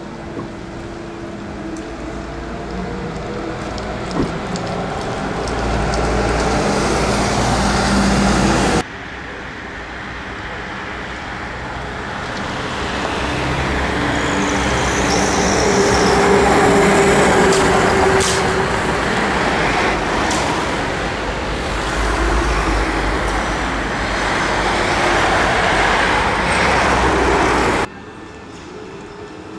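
Trolleybuses and road traffic passing close on a city street. The sound swells twice as vehicles approach, and it cuts off suddenly about nine seconds in and again near the end.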